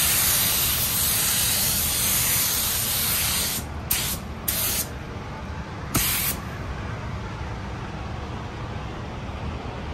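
Compressed-air paint spray gun hissing steadily as paint is sprayed, cutting off about three and a half seconds in. Three short bursts follow as the trigger is pulled briefly, over a low steady background rumble.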